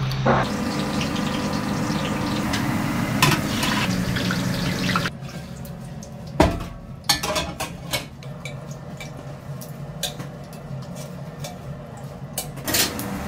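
Steady machine noise, then metal doll-head moulds knocking and clattering, with water pouring off them.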